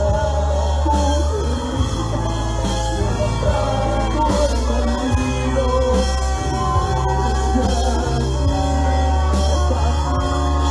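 Live church worship band playing loud, steady music on drum kit and keyboards, with a sustained bass and cymbal washes.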